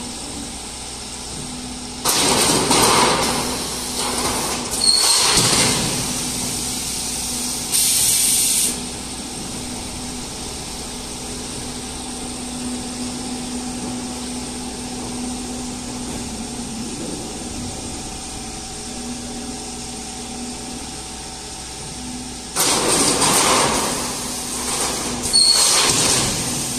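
A roofing-sheet roll forming line running with a steady machine hum. Twice, about 20 seconds apart, a few seconds of loud clattering and hissing bursts break in as the line cuts a finished sheet and the stacker drops it onto the pile.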